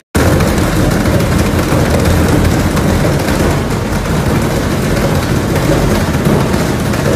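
Small top-loading washing machine running with a loud, steady rumble.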